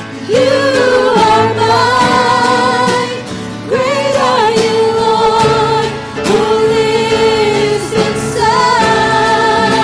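A worship song: voices singing long held notes with vibrato over instrumental accompaniment, with a new sung phrase every two to three seconds.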